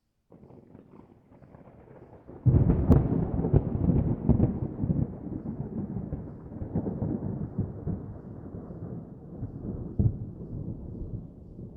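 Thunderclap: a faint low rumble, then a sudden loud crack about two and a half seconds in, followed by a long rolling rumble that slowly fades, with another sharp crack near the end.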